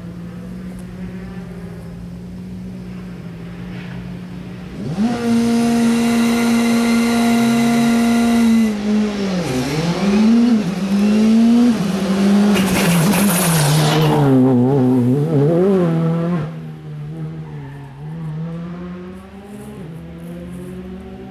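Škoda Fabia rally car at a stage start: the idling engine jumps suddenly to high revs held steady for a few seconds. The revs then dip and rise, and the car launches away with a tyre squeal, climbing through the gears before fading. A quieter idling engine is left near the end.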